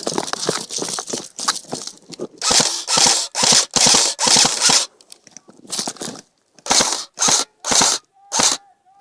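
Footsteps crunching through dry undergrowth, a dense crackle at first, then heavy separate crunching steps about two a second, with a short pause near the middle.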